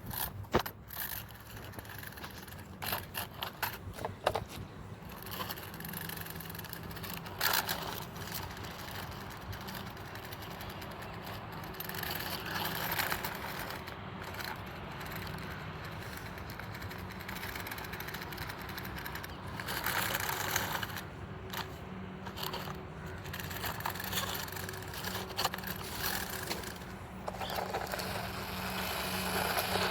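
Small electric motor of a mini RC toy car running steadily, with irregular scrapes and clicks as it drives over rough ground.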